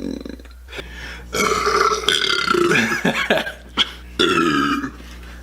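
A man belches: one long, loud burp starting about a second in and lasting about two seconds, then a shorter burp near the end.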